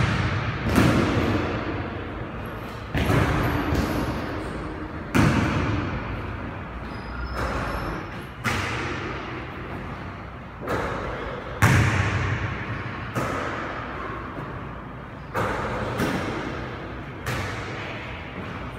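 Basketball thuds and slaps as the ball is passed, caught, shot and bounced on a hardwood floor, echoing in a large gym: about ten sharp hits a second or two apart, each trailing off in the hall's reverberation.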